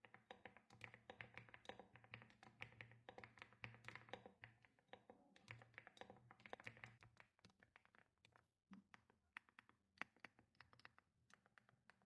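Faint, fast typing on a mechanical keyboard fitted with Keylist Studio Kitty linear switches: a dense run of soft keystrokes that eases off briefly a little past the middle.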